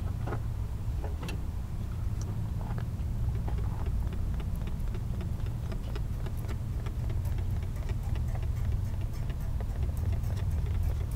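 Steady low rumble with a run of light, rapid clicks that grows denser in the second half.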